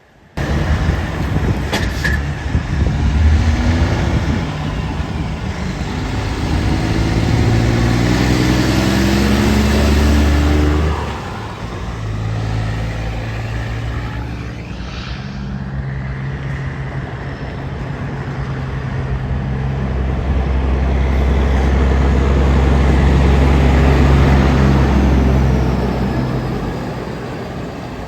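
Heavy trucks' engines pulling away. The engine pitch climbs in steps through the gears for about the first ten seconds, then a steadier engine note swells and eases off near the end.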